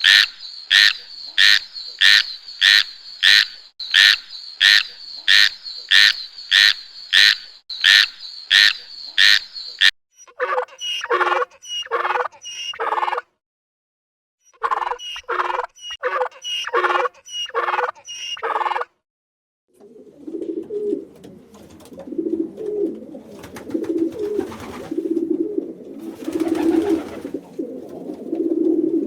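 A string of animal calls in three sections. First an even series of sharp, high calls, about two a second for some ten seconds. Then two runs of quicker, lower calls with short gaps between them. From about twenty seconds in, low calls repeat until the end.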